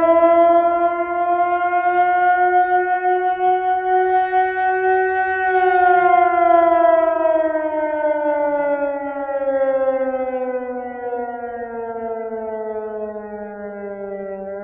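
Air raid siren wailing: its pitch climbs slowly for the first few seconds, then falls steadily and at length through the rest.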